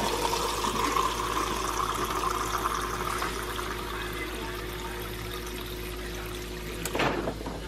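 Water pouring from a refrigerator door dispenser into a plastic cup of ice cubes, a steady stream with a faint hum underneath, its pitch rising slightly as the cup fills. The flow and hum stop about seven seconds in with a short burst of noise.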